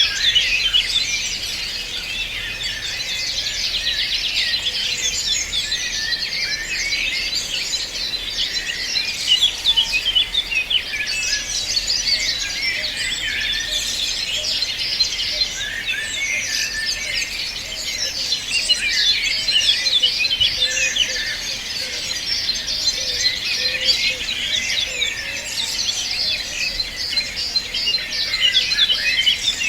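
Many small birds singing and chirping at once, a dense chorus of overlapping rapid chirps and trills.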